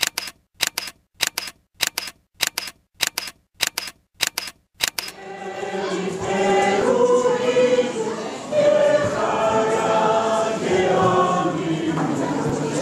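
About nine sharp double clicks at an even pace, roughly one every 0.6 s, then about five seconds in a mixed choir of men's and women's voices begins singing and carries on.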